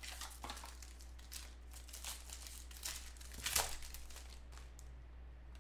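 Clear plastic wrapper of a trading card pack crinkling as it is torn open and pulled off by hand: a run of irregular crackles, loudest about three and a half seconds in.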